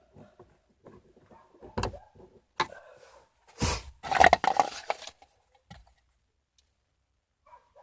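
Handling noises from car door trim being refitted: a couple of sharp knocks, then a louder clatter and scrape lasting about a second and a half, after which it goes quiet.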